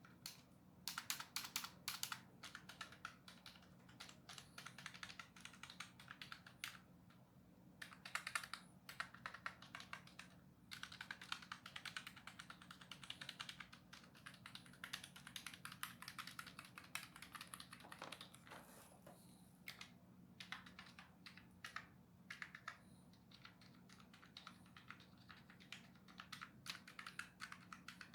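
Typing on a cheap QHMPL (Quantum) computer keyboard: quiet runs of rapid key clicks in bursts with short pauses between them, over a faint steady hum.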